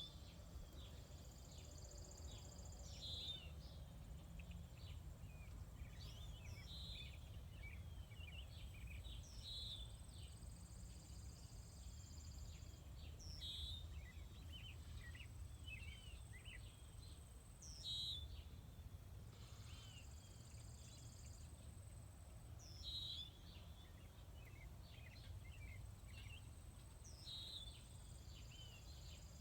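A wild bird outdoors repeating a short, sharp chirping call every few seconds, among scattered smaller chirps, heard faintly over a low hum and a thin, steady high tone.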